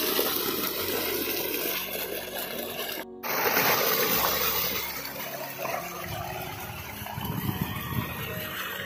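Water gushing steadily from an irrigation pipe outlet and splashing onto the ground and over chicken pieces being rinsed in the stream, with a brief break about three seconds in.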